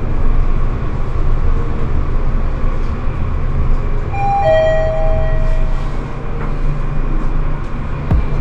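Elevator car rising with a steady low rumble; about four seconds in, a two-note ding-dong chime sounds, a higher note then a lower one, marking arrival at a floor.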